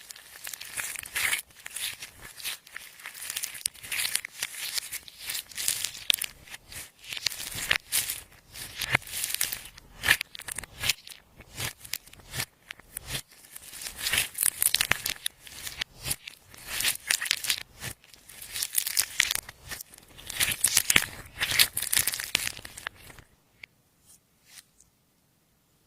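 Clear slime being kneaded and stretched by hand: irregular sticky crackling and squelching that stops abruptly near the end.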